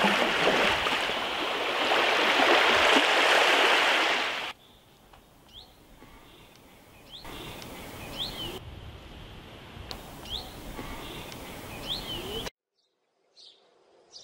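Outdoor shoreline ambience: a loud, even rushing noise for the first four and a half seconds, then a softer background in which small birds give several short rising chirps. The sound cuts out suddenly about a second and a half before the end.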